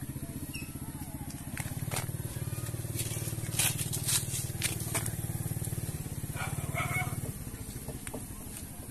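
An engine idling with a steady low pulse, a little louder in the middle. A few sharp clicks come about halfway through.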